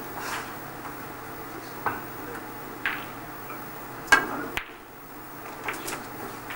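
Snooker balls clacking: a sharp click about four seconds in as the cue ball is struck, then a second click about half a second later as it strikes the blue, which is potted. A few fainter knocks of cue and balls come before and after.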